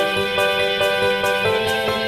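Background music: an instrumental track of held chords over a steady light beat, changing chord about one and a half seconds in.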